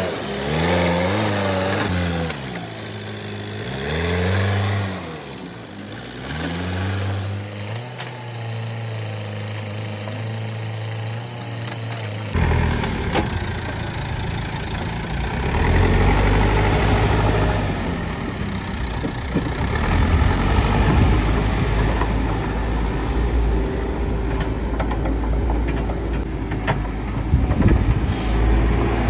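Backhoe loader's diesel engine revving up and down several times, then holding steady. About twelve seconds in, an abrupt cut leads to a heavier, noisier running of the machine.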